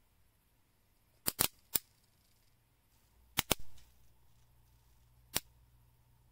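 MPETAPT 15-watt electric bug zapper's high-voltage grid snapping as insects hit it: six sharp cracks. There are three a little over a second in, two more close together about three and a half seconds in, and a single one near the end.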